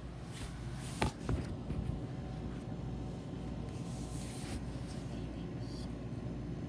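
Phone handling noise: a sharp knock about a second in and a lighter one just after, as the phone is brought down to the floor, with brief rustles over a steady low hum.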